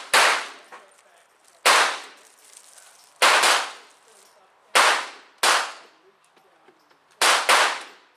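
Gunshots at a shooting range: about eight sharp reports at irregular spacing, some in quick pairs, each with a short echoing tail.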